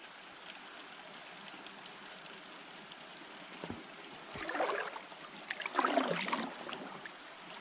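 Steady rush of flowing river water, with a few louder scuffing, rustling noises about halfway through.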